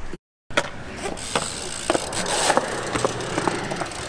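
BMX bike rolling across skatepark concrete: a steady tyre hiss with scattered clicks and knocks from the bike and its wheels, after a brief cut to silence just after the start.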